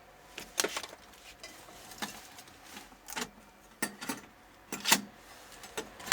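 Thin metal shield plate being pried off a TV's T-con board: a run of light metallic clicks and clinks, about eight, unevenly spaced.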